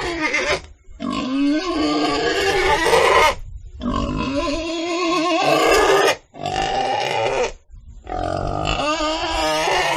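Pigs calling: about five long, wavering calls in a row, each a second or two long, with short breaks between.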